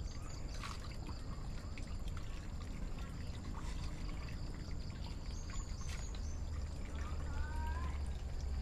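Water trickling and splashing into a tarpaulin frog pond, a steady running-water sound.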